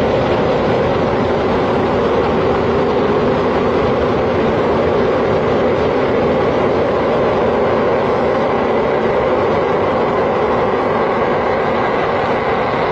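Jet aircraft engine running with a loud, steady roar and a faint thin whine above it.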